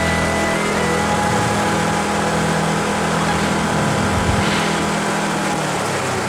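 ATV engine running steadily under way, with wind and ground noise around it.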